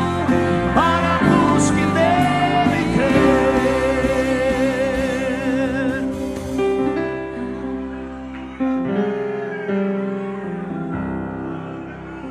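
Gospel worship song: a singer holds long notes with vibrato over sustained instrumental chords. About six seconds in the voice stops and the chords carry on alone, gradually getting softer.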